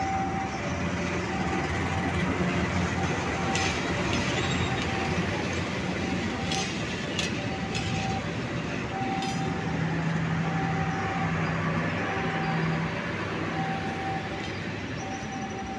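Passenger train coaches rolling past on the rails with a steady rumble and a few sharp metallic clanks from the wheels. Over it, a level-crossing warning signal repeats a short ringing tone about once a second.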